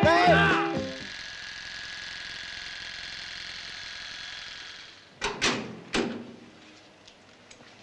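Electric hair clippers buzzing steadily while shaving a head down to stubble, stopping after about four seconds. Then a door clatters with three sharp knocks in under a second. Guitar music ends just at the start.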